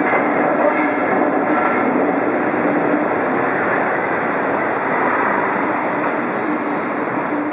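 JR Freight electric locomotive rolling slowly past at close range, its cooling blowers running with a steady loud rush and a faint low hum that comes and goes.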